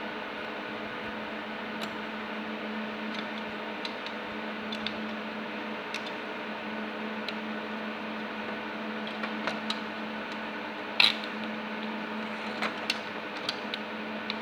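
A steady machine hum with a fan-like drone and a low tone, under light scattered clicks and taps; one louder knock comes about eleven seconds in.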